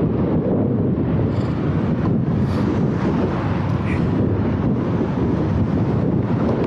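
Strong wind buffeting the microphone of a camera on a moving bicycle: a steady, loud low rumble.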